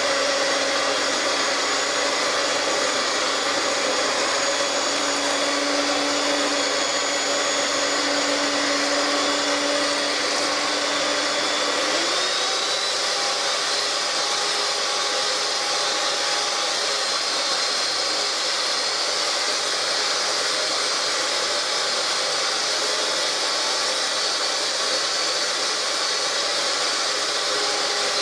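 Electric hand mixer running steadily, its beaters whisking an egg-and-sugar mixture in a glass bowl over simmering water. About twelve seconds in, the motor's pitch steps up to a higher speed.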